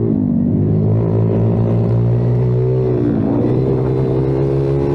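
Kayo TT 140 pit bike's single-cylinder four-stroke engine running hard under throttle, heard from onboard. The revs dip briefly just after the start and again about three seconds in, then climb back up.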